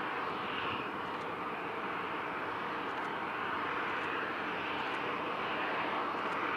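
Jet airliner engines running steadily: an even rushing hiss with no rise or fall.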